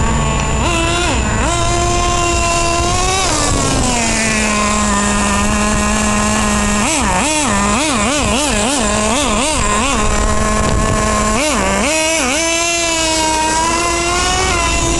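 Small nitro glow engine of a radio-controlled monster truck buzzing at a high pitch. About four seconds in it drops to a steady idle for a few seconds, then the throttle is blipped in a quick string of about eight revs. It revs up again and holds a higher pitch near the end.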